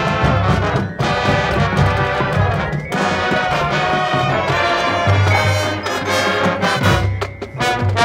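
Marching band playing: a brass section over drums and front-ensemble percussion, with repeated low bass-drum hits under the brass.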